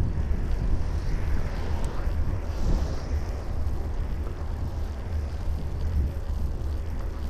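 Wind buffeting the microphone of a bicycle-mounted camera while riding, heard as a steady low rumble, with road traffic going by. A brief hiss swells about two seconds in.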